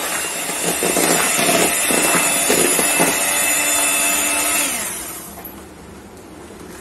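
Electric hand mixer running with its beaters churning through a thick whipped-cream ice cream base in a plastic bowl. Its motor slows and falls in pitch as it is switched off about two-thirds of the way through.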